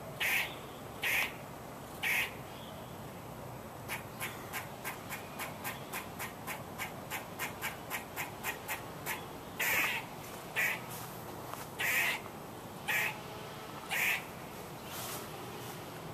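Squirrel alarm calls: a few separate barks, then a quick run of short chirps from about four to nine seconds in, then longer calls about once a second.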